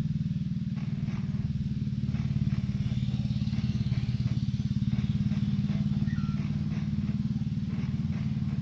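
An engine running steadily, a low even hum with a rapid pulsing beat.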